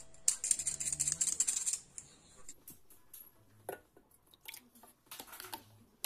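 Handheld stainless steel mesh sieve shaken with flour in it, rattling and rasping rapidly for about a second and a half. A few scattered light clicks and knocks follow.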